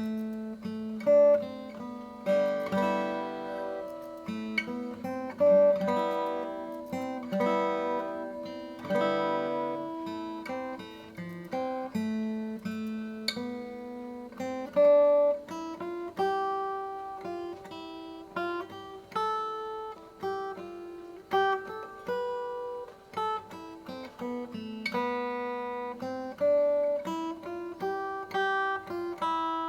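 Steel-string acoustic guitar, a Seagull S6 Original, played fingerstyle: a slow melody of single plucked notes over ringing bass notes and chords.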